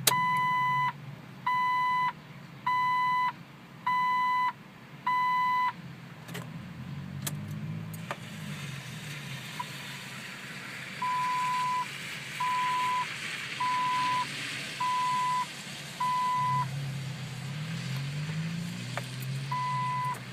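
A Jeep's electronic warning chime beeping repeatedly on one steady tone: five beeps about a second and a quarter apart, a pause of a few seconds, five more, then one last beep near the end. It sounds over a low steady hum, while the Jeep won't start and is on a jump.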